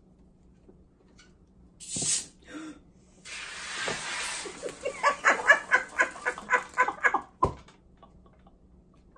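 Hiss of a plastic soda bottle being opened, followed by a run of laughter in quick pulses and a single thump near the end.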